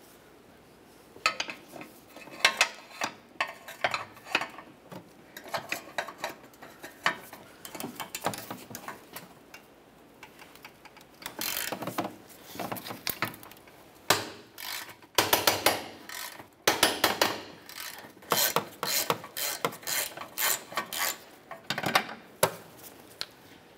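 Hand ratchet clicking in quick runs as the 18 mm bolt on the transfer case bracket is loosened and backed out, with the socket and long extension clinking against metal.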